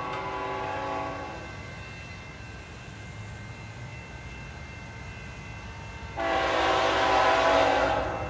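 Approaching diesel locomotive's air horn sounding several notes at once. One blast ends about a second in, and a longer, louder blast starts about six seconds in.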